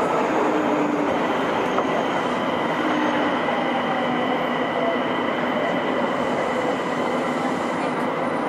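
Nagoya Municipal Subway 2000 series train, one of the sets refitted with IGBT inverter control, running through the tunnel: a steady rail running noise with a thin, constant high tone that comes in about a second in.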